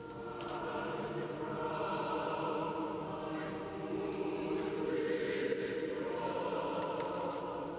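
A choir singing a slow hymn in long held notes.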